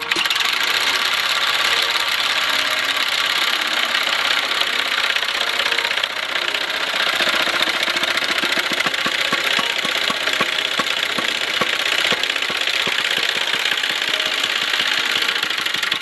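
Homemade log splitter running on an old washing-machine motor: the motor and its drive mechanism run steadily and loudly as the wedge presses down into a log. From about seven seconds in there is a fast run of regular knocks.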